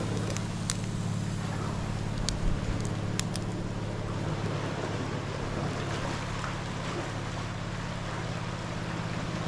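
An engine running steadily at a constant speed, with a few sharp clicks in the first few seconds.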